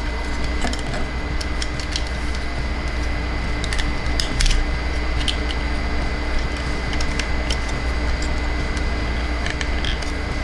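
Scattered light clicks of plastic toy parts being handled and snapped, over a steady low hum.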